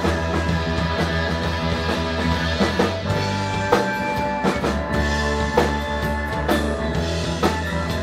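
Live blues-rock band playing an instrumental passage: electric guitar, bass, keyboard and a drum kit with cymbals keeping a steady beat.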